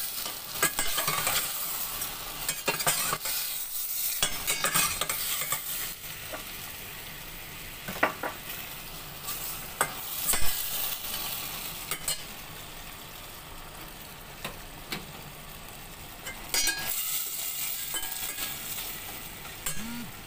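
Beef pieces sizzling as they fry in dark soy sauce in a stainless steel pot, with a metal ladle scraping and clinking against the pot as they are stirred. The ladle knocks come at intervals, the loudest about ten seconds in.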